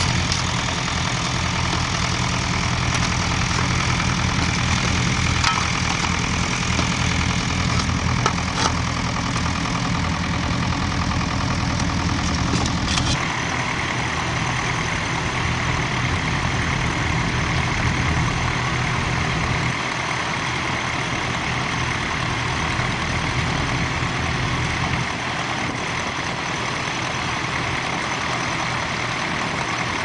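Small vintage grey Ferguson tractor engine running steadily while pulling a mounted plough through stubble. The engine note changes abruptly a little under halfway through, then runs on steadily.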